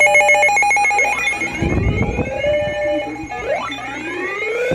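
Electronic alert alarm: a whooping tone that rises for about a second, holds briefly, and repeats about every two seconds, over a steady, rapidly pulsing beep.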